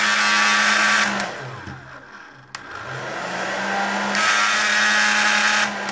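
OK-brand hair dryer running on full with a steady hum under the rush of air, a strange noise that sounds like a broken electric scooter. It is switched off about a second in and winds down, clicks back on, runs up through a lower stage to full again, and is switched off near the end. The noise comes from cracked fan rotor blades that rub against the housing.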